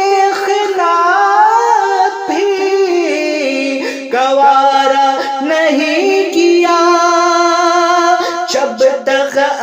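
A man singing an Urdu naat, drawing out long held notes with wavering, ornamented turns of pitch instead of distinct words.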